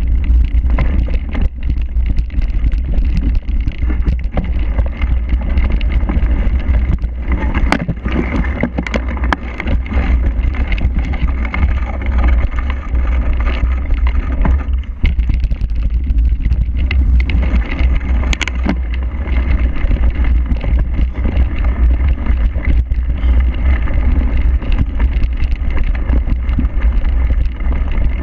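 Wind buffeting the microphone of an action camera on a cyclocross bike riding a bumpy, muddy course. A steady deep rumble is broken by frequent rattles and knocks from the bike over rough ground, thickest a few seconds in.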